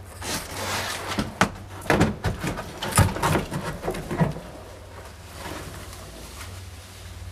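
A person clambering out through a small window opening in a wooden-walled room: knocks, thumps and scuffs on the boards and a loose glass-paned window, busiest in the first four seconds or so, then quieter shuffling.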